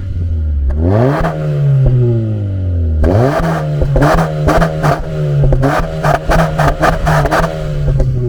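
Honda CR-Z's 1.5-litre four-cylinder engine revved through an aftermarket sport exhaust. One rev rises about a second in and falls away. From about three seconds there is a quick run of short throttle blips, without a backfire pop.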